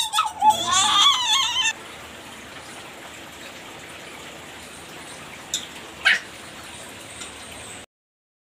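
A high, warbling call, wavering quickly in pitch, that stops about two seconds in. Two light clicks follow a few seconds later, then the sound cuts off.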